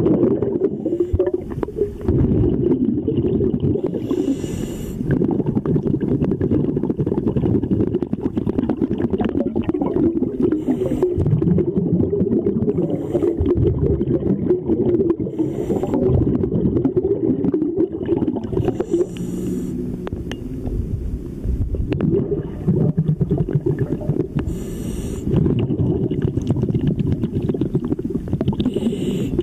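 Underwater sound picked up through a camera housing: a steady low rumble of water and handling noise, with a scuba diver's exhaled breath bubbling out of the regulator in short bursts about every five seconds.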